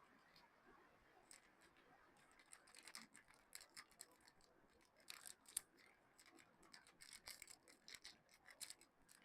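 Soap packaging being unwrapped by hand: quick, crisp crinkling and rustling of the wrapper, sparse at first and busier from about two and a half seconds in.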